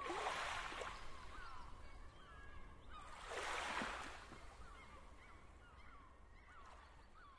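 Birds calling with many short, falling cries, over two swells of rushing noise, one at the start and one about three seconds in; the whole fades away toward the end.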